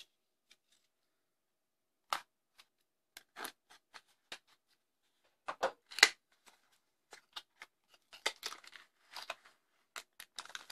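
Small cardboard box being opened by hand: the sealing tape cut and the flaps pried open, heard as scattered short snips, scrapes and taps, the loudest about six seconds in. Near the end comes a busier run of small rustles and taps as a plastic bag is slid out of the box.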